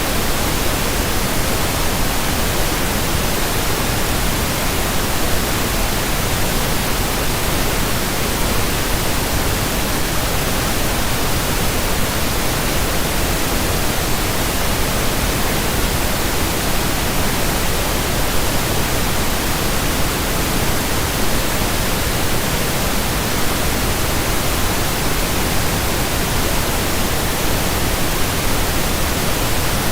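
Steady, unchanging pink noise: an even hiss spread across all pitches, with no other sound.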